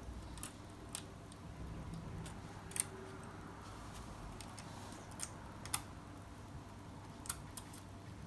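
Small plastic parts of a Strandbeest model kit being handled and fitted together by hand: a handful of light, sharp clicks and taps at irregular times over a quiet background.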